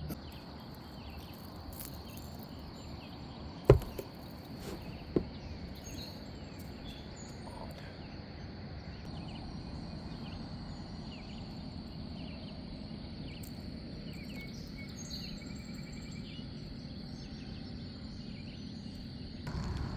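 River-side outdoor ambience: a steady high-pitched hum with scattered faint bird chirps, broken by two sharp knocks about four and five seconds in, the first much louder.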